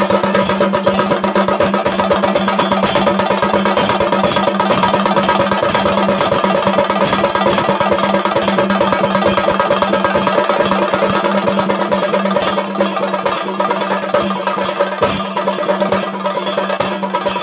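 Chenda melam: a group of chenda drums beaten with sticks in a fast, dense, unbroken stream of strokes, with a steady low tone underneath.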